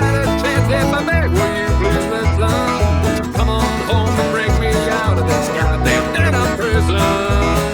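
Bluegrass backing track with no lead vocal: banjo and guitar picking over a steady pulsing bass line.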